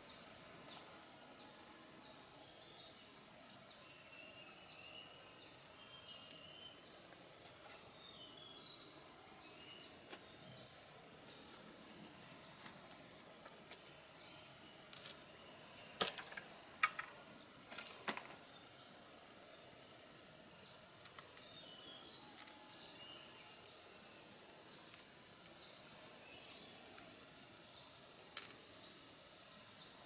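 Forest ambience: insects droning steadily, with birds giving short high calls, one falling call near the start and another about halfway, and brief rising whistles now and then. A few sharp clicks about halfway through are the loudest moment.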